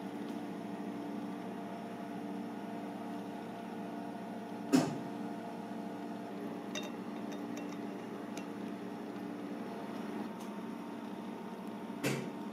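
Steady machine hum with several low, even tones, like a running appliance or fan in a small room, broken by two sharp knocks of tableware, the louder about five seconds in and the other near the end, with a few faint ticks in between.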